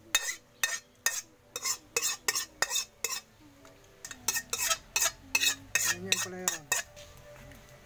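Large metal spoon scraping and knocking against a metal wok as the cooked mixture is scooped out into a stockpot. Quick repeated scrapes, a few a second, with a short pause about three seconds in, stopping near the end.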